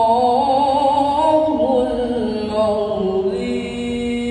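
A boy's solo Qur'an recitation (tilawah) in the melodic competition style, amplified through a microphone: ornamented, wavering runs, then a long held note from about three seconds in.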